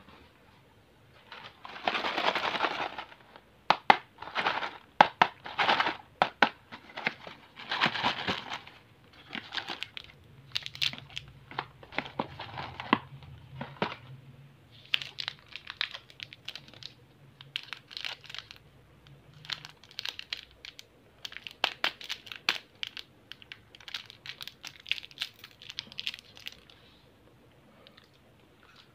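Plastic candy wrappers and packaging crinkling and rustling in irregular bursts, with sharp clicks, as a hand rummages through a heap of twist-wrapped sweets and lifts out a small cardboard box. The handling stops shortly before the end.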